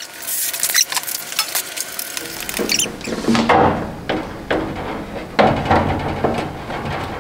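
Steel drawer of a 1980s Craftsman rolling tool chest being slid in and out on its metal drawer slides: light scratchy scraping at first, then from about two seconds in a rumbling roll with repeated metal clicks and rattles.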